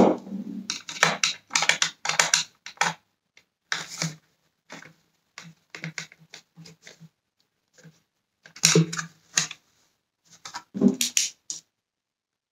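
Irregular plastic clicks, taps and knocks from a Dyson vacuum's cyclone unit being handled and screwed together with a small screwdriver. The clicks come in quick clusters, louder at the start and twice in the second half.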